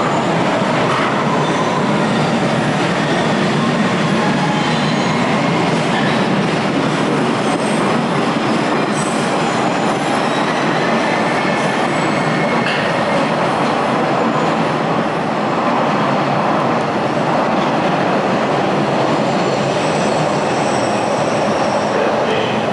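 MBTA Red Line subway train of Pullman-Standard No.1 and UTDC No.2 cars pulling out of the station. The steady loud rumble of wheels on the rails carries thin high wheel squeals that come and go.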